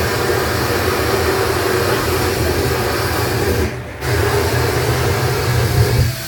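Flamethrower blasting flame into a steel barrel smoker's firebox to burn it clean: a loud steady hiss with a low rumble beneath. It drops out briefly a little past halfway, then comes back.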